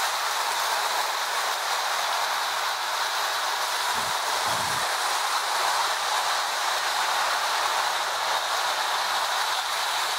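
Toy electric trains running on tinplate three-rail track: a steady, even whirring rattle of motors and wheels on the metal rails, with a couple of brief low bumps about four seconds in.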